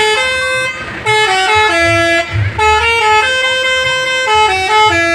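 Basuri telolet bus horn playing a stepped multi-note tune, in three phrases with short breaks between them, over a low rumble.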